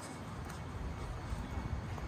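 Outdoor city street ambience: a steady low rumble with a faint tick about a quarter of the way in.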